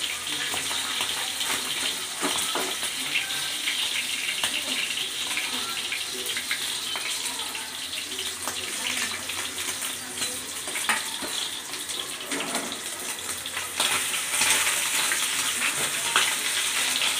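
Pabda fish frying in hot mustard oil, a steady sizzle with dense crackling, and a few sharper clicks as a spatula works in the pan.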